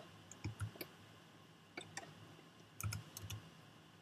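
Computer keyboard keys and mouse buttons clicking in a few small groups, some presses with a dull thud, over a faint steady hum.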